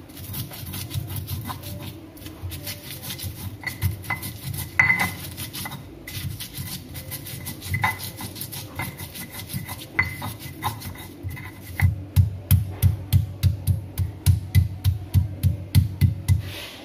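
A stone pestle crushing and grinding shallots, garlic, chillies and spices in a stone mortar (Indonesian ulekan and cobek). At first there are scattered knocks and scrapes of stone on stone. In the last few seconds it settles into a steady grinding rhythm of about two to three strokes a second.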